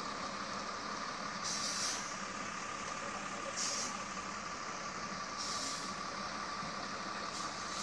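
Log truck's diesel engine running in a steady drone as the loaded truck crawls through a muddy water crossing. Short hissing bursts come about every two seconds.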